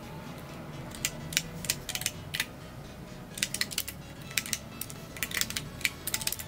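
Computer keyboard typing: quick runs of key clicks in three bursts, with short pauses between.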